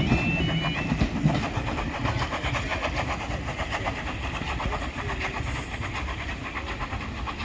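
A train running past, its wheels clacking rhythmically over the rails as it slowly draws away.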